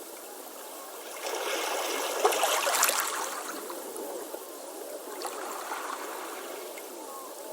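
Beach waves: a wave washes in about a second in, is loudest around two to three seconds, then drains back with trickling, gurgling foam.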